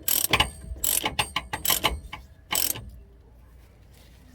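Hand ratchet clicking in short bursts on its back-strokes, about five times, as the lower shock mounting nut is tightened. It stops about three seconds in.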